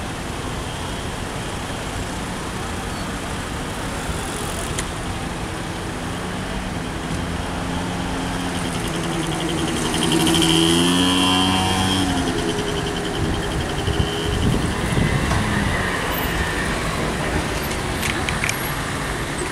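Road traffic of cars idling and creeping forward in a queue, a steady engine-and-tyre rumble. About halfway through, one vehicle's engine passes close, growing loud with its note shifting in pitch. A few light knocks follow near the end.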